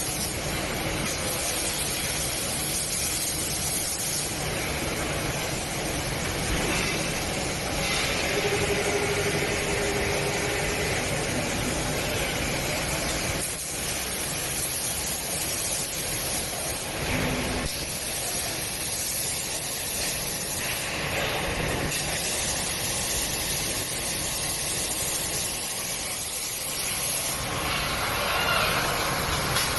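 Robotic arc welding cell at work: a steady hiss and crackle from the welding arc over machine noise, with a brief faint hum about eight seconds in.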